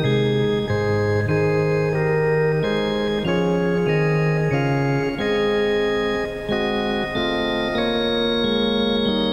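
Organ music: held chords that don't fade, moving to a new chord about every two-thirds of a second.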